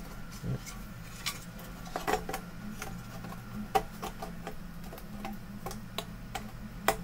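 Light irregular clicks and taps as a monitor's circuit board is fitted into its sheet-metal bracket frame, with the loudest click near the end. A steady faint hum runs underneath.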